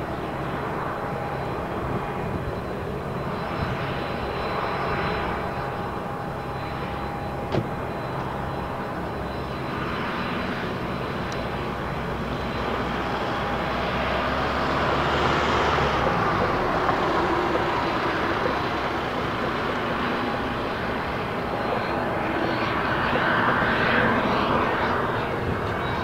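Twin Williams FJ44 turbofans of a Cessna CitationJet CJ1+ running steadily as the business jet rolls along the runway after landing, a jet rush with a faint steady whine that grows louder past the middle. A single sharp click about seven seconds in.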